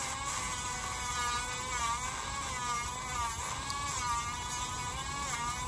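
Dremel rotary tool whining as it grinds down a dog's toenail. Its pitch dips and recovers several times.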